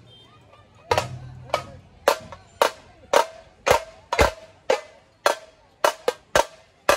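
Dhol-tasha troupe drumming: loud single drum strikes about two a second, each ringing briefly, with a deep dhol thump on some beats. The beat comes in about a second in, after a short pause.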